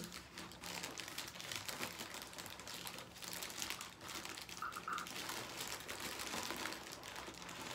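Plastic bubble wrap crinkling and rustling as it is handled and pulled off a package: a dense, continuous run of small crackles.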